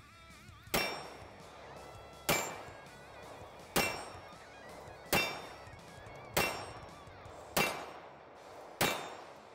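Seven shots from an M1911A1 pistol in .45 ACP, fired at a steady pace about one and a half seconds apart, each with a brief metallic ring from the steel target being hit.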